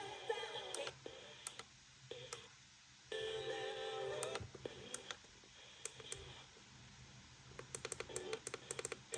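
Short bursts of tones from the FM radio, with a quick run of clicks about eight seconds in.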